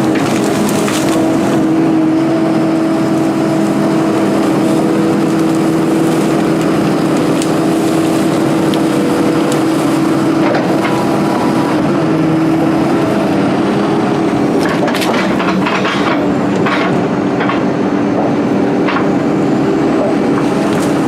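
A 240D excavator's engine runs steadily under hydraulic load while the thumb and bucket work. In the second half comes a run of sharp cracking and snapping, like small trees or brush breaking in the thumb's grip.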